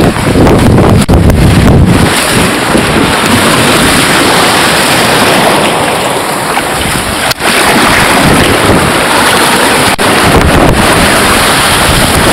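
Sea surf breaking and foaming against shore rocks, a steady loud rush, with wind buffeting the microphone, heaviest in the first two seconds.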